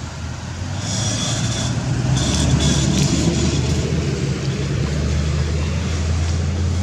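A motor vehicle's engine running close by. Its low hum grows louder over the first two seconds and then holds steady, with two short hissing bursts about one and two seconds in.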